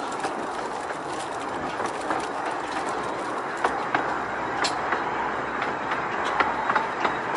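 Wheels of a 15-inch-gauge railway coach rolling over pointwork: a steady rumble broken by sharp, irregular clicks as the wheels cross rail joints and crossings, coming more often in the second half.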